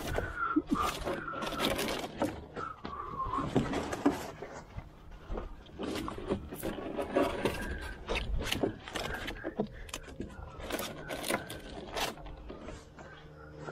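Irregular scraping and sharp knocks of a fishing net being hauled in by hand.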